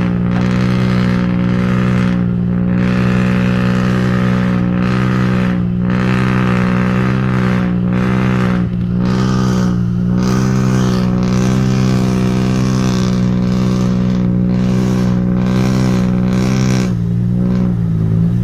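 Excavator's diesel engine running steadily at high revs, a loud continuous drone whose pitch wobbles slightly now and then.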